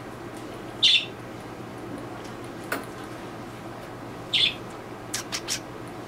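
Small pet parrots chirping: a short high call about a second in, another a little past four seconds, then three quick chirps near the end.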